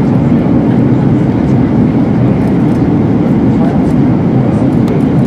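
Steady cabin noise heard from a window seat of an Airbus A321-211 on final approach: a constant deep rumble of its CFM56 engines and the air rushing past the fuselage, at an even level.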